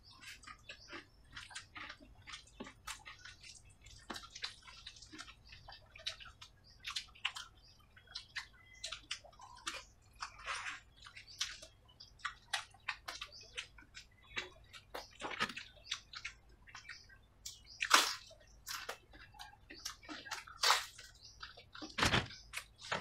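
Wet eating sounds: chewing and lip smacking, and fingers squishing rice mixed with kadhi, heard as a steady scatter of short wet clicks. There are a few louder sharp sounds in the last five seconds.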